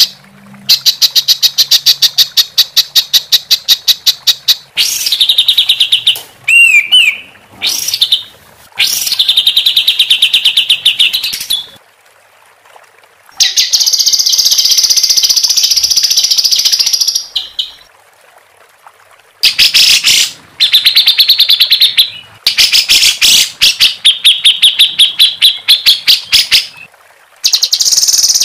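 Songbird song in phrases of rapid, sharp repeated notes, about eight a second, broken by short pauses, with a few swooping whistled notes about six seconds in and a long harsh buzzing phrase of about four seconds midway.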